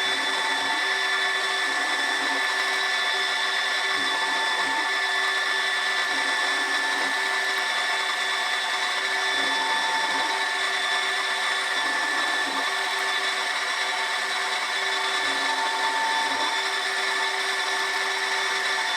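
Milling machine running steadily with its motor whine, while an end mill cuts the stainless steel fork of a model steam-pump plunger; the machine stops suddenly at the very end.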